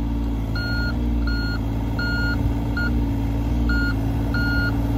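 John Deere 35G mini excavator's diesel engine running steadily, with its travel alarm giving about seven beeps of uneven length from about half a second in, the sign that its tracks are moving.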